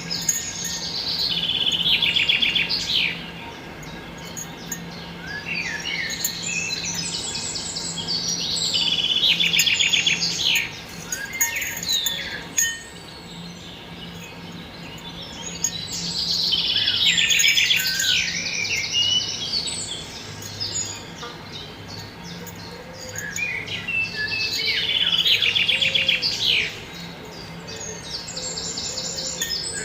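Songbirds singing: loud bursts of rapid trills and chirps that swell and fade about every eight seconds, over a faint steady low hum.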